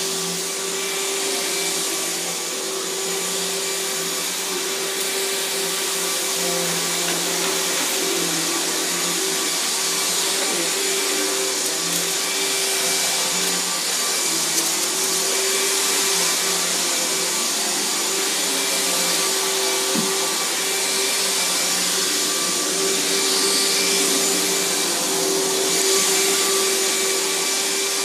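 Riccar 10-amp bagged upright vacuum cleaner running steadily while vacuuming, a constant motor hum under a loud airflow hiss.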